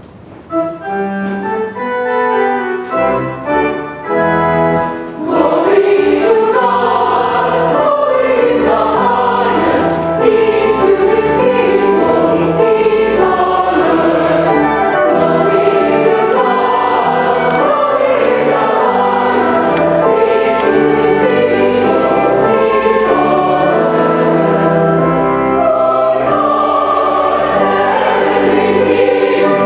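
A church choir and congregation singing a hymn with instrumental accompaniment. About five seconds of instrumental introduction come first, and then the singing comes in fuller and louder.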